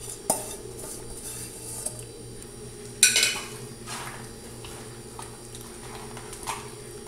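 Metal kitchenware clattering against an aluminium baking tray, with a small click just after the start and one sharp ringing clank about three seconds in. A faint steady hum runs underneath.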